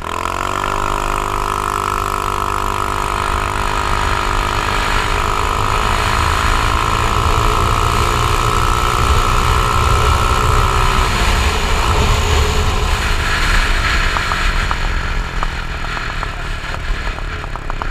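2017 Icebear Maddog 150 scooter's single-cylinder GY6-type engine, fitted with a no-rev-limit CDI, pulling away under throttle. Its pitch jumps up at once and then holds nearly steady as the belt drive takes up the speed, under heavy wind rumble on the GoPro housing. About eleven seconds in, the engine tone sinks under the wind noise.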